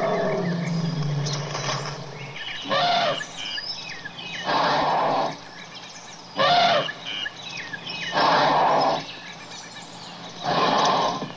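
African elephant calls: a low pitched rumble fading out over the first two seconds, then five short, loud calls about every two seconds, some clearly pitched and some harsh.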